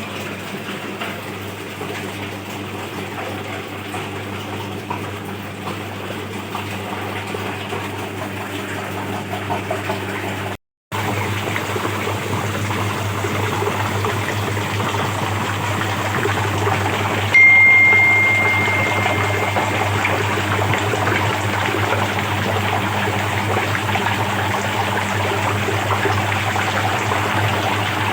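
Electric liquid-batter mixer running: the motor hums steadily while the stirrer churns and splashes the liquid in the tank. About two-thirds of the way through, a high steady tone sounds for a couple of seconds over it.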